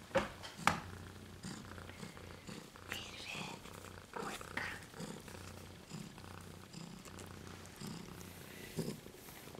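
Siberian cat purring, a low steady rumble that breaks off briefly now and then. Two soft knocks come about half a second apart near the start.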